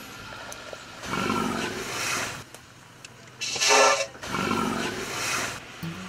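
African elephants calling three times. The loudest, in the middle, is a pitched trumpet call, with a rougher, noisier roar before it and another after it.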